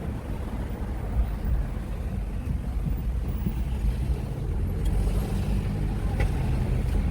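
Car driving on a road, heard from inside the cabin: a steady low rumble of road and engine noise.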